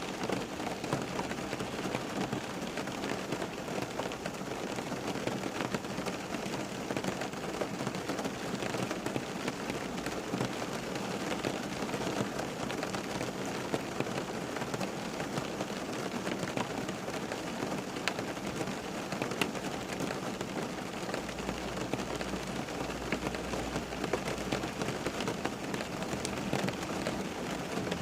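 Steady rain falling and pattering on a surface, dense and even, with individual drops ticking through it.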